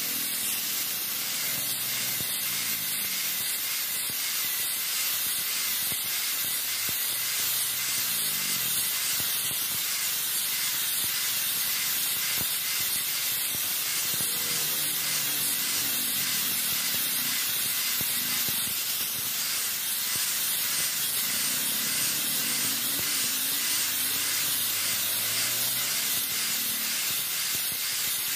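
Electric angle grinder running with an abrasive disc pressed against a steel knife blade, grinding it: a steady high hiss of disc on metal, unbroken throughout.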